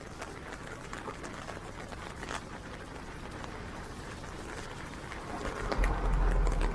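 Steady rain falling, with scattered taps of individual drops. About five seconds in, a low rumble builds and grows louder.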